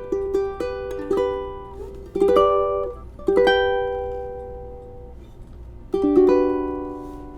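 Islander MOT-4 ukulele being played: a few quick single plucked notes, then three strummed chords about a second, then nearly three seconds apart, each left to ring and die away.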